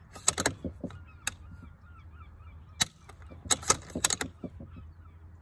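Bolt-action precision rifle being worked dry: sharp metallic clicks of the bolt and trigger, in a quick group at the start, single clicks about a second and about three seconds in, and another group near four seconds.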